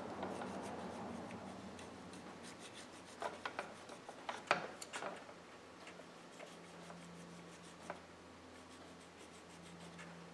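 Small needle file rubbing faintly against a die-cast metal Dinky toy autogiro, with soft scraping strokes in the first couple of seconds and then a few scattered light clicks and scrapes as the file and model are worked by hand.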